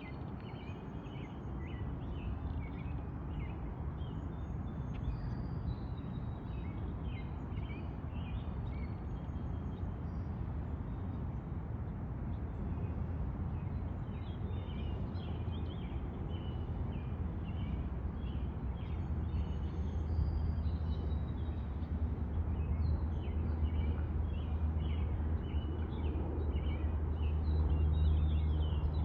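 Many small birds chirping and calling in quick short notes throughout, over a steady low rumble that grows louder near the end.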